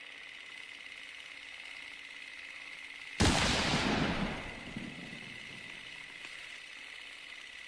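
A sudden loud bang about three seconds in that fades out over about a second and a half. Under it runs a steady hiss with a thin high whine.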